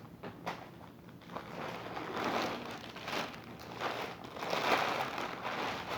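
Plastic packaging crinkling and rustling as an item is handled and unwrapped by hand: a few light clicks at first, then louder, irregular rustling from about a second and a half in.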